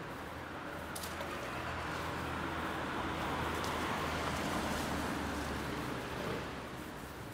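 Street traffic: a motor vehicle passing, its noise swelling for a few seconds and then fading, over a low steady engine hum.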